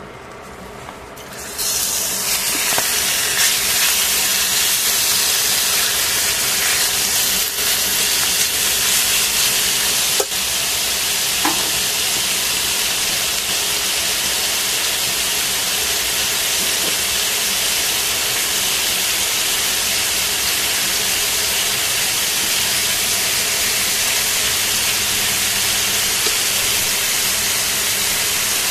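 Thinly sliced pork frying in hot oil in a stainless-steel pan: a loud, steady sizzle that starts suddenly about a second and a half in as the meat goes into the pan, with a sharp click about ten seconds in.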